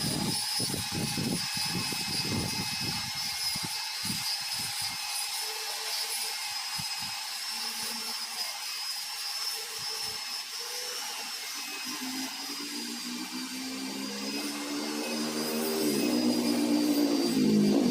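An electric power tool's motor running steadily with a high whine, with irregular low knocks in the first few seconds. Near the end an engine comes up louder, rising in pitch.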